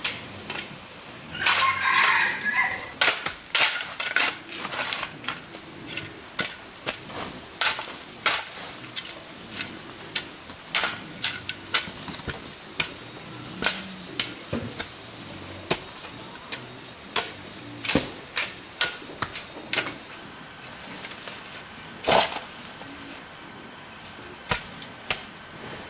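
Irregular sharp knocks and clicks, at times several a second, with a louder strike about twenty-two seconds in.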